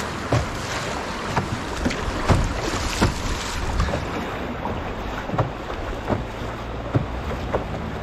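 A canoe moving through fast, choppy river water: a steady rush of water with wind on the microphone, cut by sharp splashes and knocks against the hull about every half second to second.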